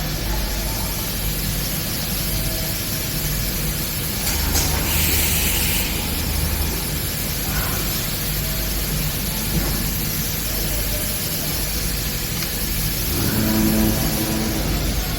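Machinery running with a steady low hum and hiss. A short burst of hissing comes about five seconds in, and a brief pitched tone is heard near the end.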